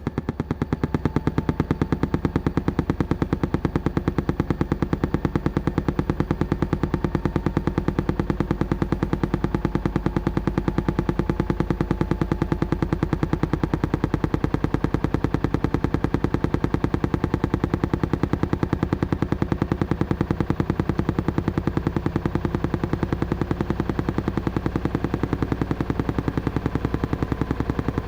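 Washing machine on its spin cycle: a steady hum with a rapid, even rattle from the spinning drum.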